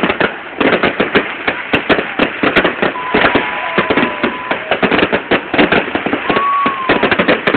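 Fireworks display: a dense, rapid barrage of crackling bangs without a break, with a high whistling tone about three seconds in and a short whistle near the end.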